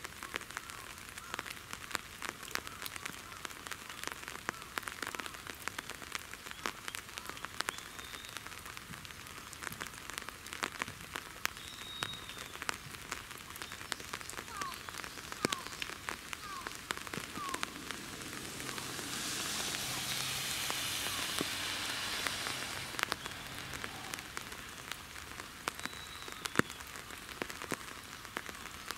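Light rain falling, with many fine pattering drop ticks over a steady hiss. A few seconds past the middle, a louder rushing noise swells and then fades.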